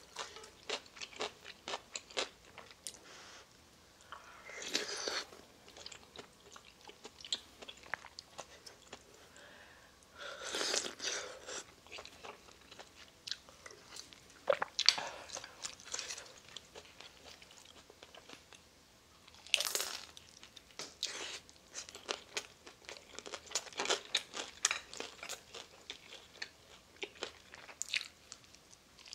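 Close-miked eating: chewing with many small wet clicks and crunches, and a few long slurps of spicy noodle soup, about five seconds in, from about ten to twelve seconds, and near twenty seconds.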